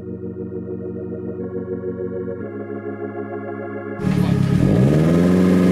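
Synthesized organ-like chords that change twice, then about four seconds in a Mazda3 MPS's 2.3-litre turbocharged four-cylinder is revved, its pitch rising and holding.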